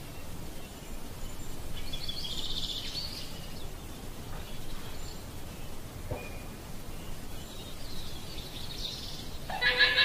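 Llama calls: a faint, pulsing high call about two seconds in and another shortly before the end, then a loud call with a strong low tone and many overtones starts near the end, over a steady background hiss.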